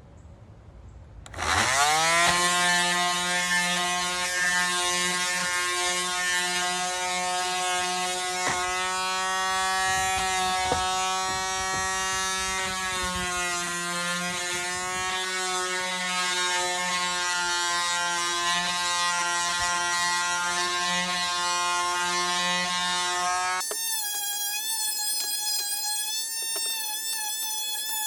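Electric power sander switched on, its motor rising quickly in pitch as it spins up, then running steadily with a hiss from sanding the wooden table legs. Near the end the sound cuts off abruptly and is replaced by a thinner, wavering tone.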